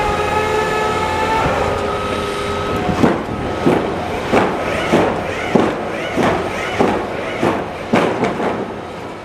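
Construction machinery on a building site: a steady high squealing whine for about the first three seconds, then about nine heavy strikes, roughly one and a half a second, each ringing after it.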